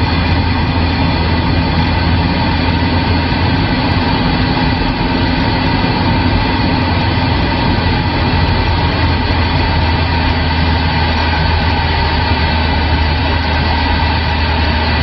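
Steady low drone of a vehicle on the road, heard inside the cab, under a constant hiss with a few thin steady whistles from the CB radio's AM receiver.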